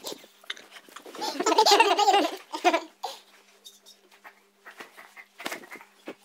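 Loud laughter lasting about a second and a half, starting about a second in, then quieter handling knocks and a short burst of voice near the end.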